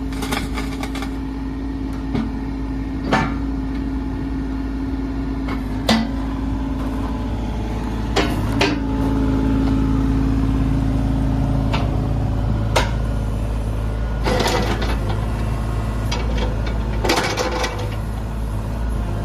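John Deere 35G mini excavator's diesel engine running steadily. About eight and a half seconds in it grows louder and deeper, as if taking load, and sharp metallic clanks and knocks come every second or few.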